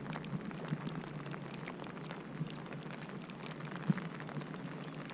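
Rain falling steadily, with a scatter of small drop ticks close by and one sharper tick about four seconds in.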